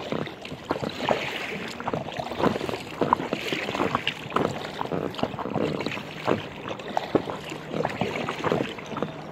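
Water slapping and lapping against the hull of an inflatable kayak under way on choppy water: a run of small, irregular splashes.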